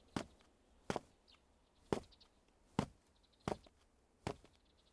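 Six sharp, short clicks spaced about a second apart, with quiet between them.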